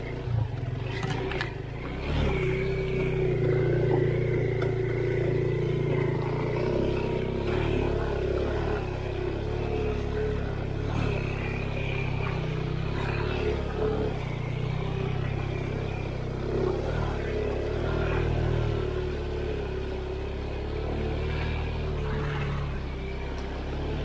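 Engine of an all-wheel-drive off-road motorcycle running under load as it is ridden, its pitch holding fairly steady with small rises and dips. A few sharp knocks come near the start.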